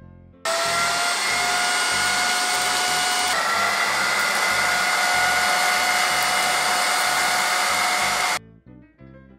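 Mijia handheld cordless vacuum cleaner running: a loud, steady rush of air with a high motor whine. It comes in abruptly about half a second in, the whine steps slightly higher about three seconds in, and it cuts off abruptly near the end.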